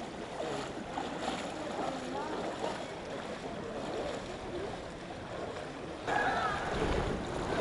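Floodwater sloshing and splashing as people wade through it, pushing a loaded cargo tricycle with its wheels in the water. Faint voices sound underneath and become louder about six seconds in.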